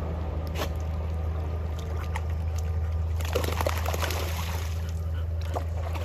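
Water sloshing and splashing as a dog swims and then wades through a shallow creek, livelier from about halfway through, over a steady low rumble.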